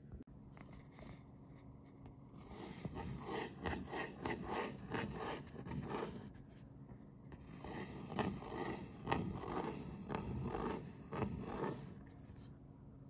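Pilot Elite fountain pen nib scratching across paper while drawing large loops, in runs of quick scratchy strokes. The scratching starts about two seconds in, eases off briefly past the middle, and stops about a second before the end.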